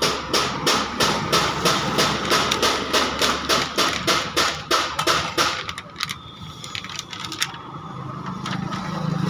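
Rapid, regular knocking, about three strokes a second, that stops about five and a half seconds in and gives way to a low steady hum.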